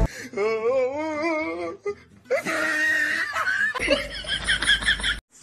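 People laughing: a wavering laugh, a short break about two seconds in, then more laughter ending in quick giggles.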